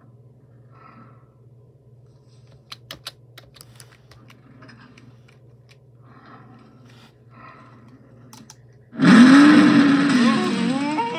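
A faint low hum with scattered soft clicks, then about nine seconds in a sudden loud burst of cartoon soundtrack, with overlapping rising-and-falling moo-like calls of the cartoon tractors.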